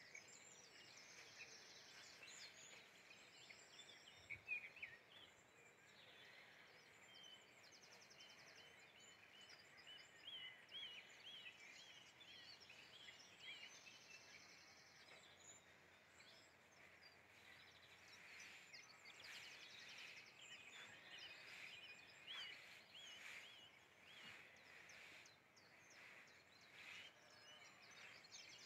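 Faint birdsong from several small birds: repeated looping chirps and short buzzy trills over a low, steady outdoor hiss, with one soft bump about four seconds in.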